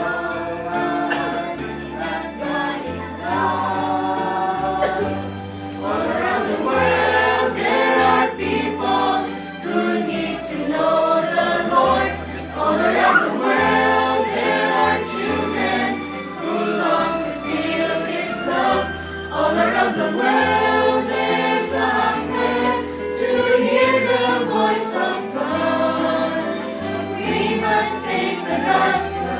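Christian song sung by a group of voices over an accompaniment with a bass line.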